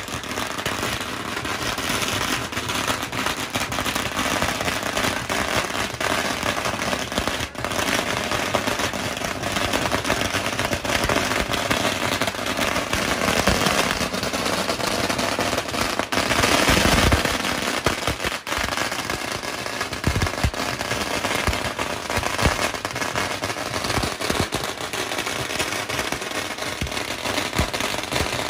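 Long strings of red paper firecrackers going off in a rapid, unbroken crackle of bangs, loudest about seventeen seconds in.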